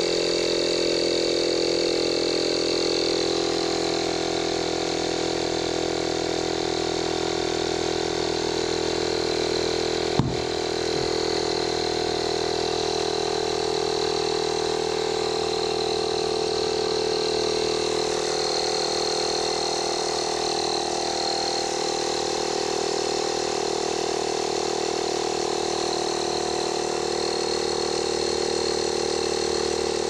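Cordless electric air compressor running steadily as it pumps air into a scooter tyre whose bead has not yet seated, with one brief knock about ten seconds in.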